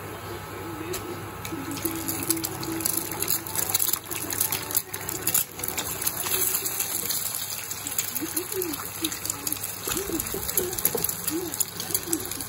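Hot oil sizzling and crackling in a nonstick wok as garlic and eggs fry, with a plastic spatula scraping and stirring. The sizzle grows louder and more spattery about two seconds in, as the eggs hit the oil.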